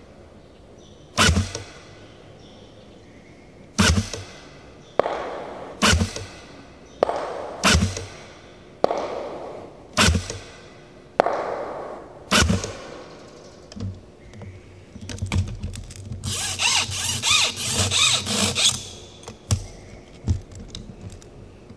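A gun fired about ten times in quick succession, one sharp shot every second or so, each with a short echo. Near the end comes a few seconds of rattling clatter.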